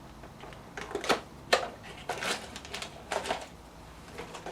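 New steering tie rod ends being handled in their packaging: crinkling plastic and a series of irregular sharp clicks and light knocks, the loudest about a second and a second and a half in.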